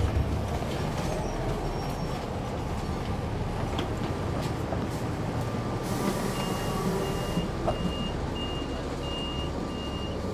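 Inside an articulated Neoplan AN459 transit bus with a Caterpillar C9 diesel, the engine runs low and steady. About six seconds in, a hiss of released air sounds, and an electronic warning beeper starts, about two beeps a second.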